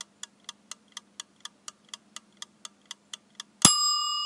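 Kitchen timer ticking about four times a second, then a single bell ding near the end that rings on and slowly fades: the timer going off.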